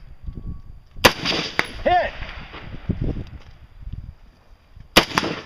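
Two rifle shots from an AR-style semi-automatic rifle, about four seconds apart. Each is followed roughly a second later by a short metallic ring from the distant steel target being hit.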